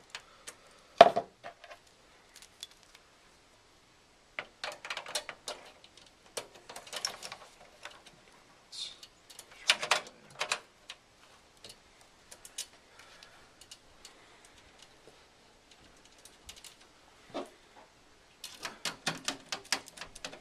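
Small metal clicks and clinks in irregular bursts: a screwdriver and screw working an expansion-slot bracket into a computer case, with a sharp knock about a second in and a quick run of rattling clicks near the end.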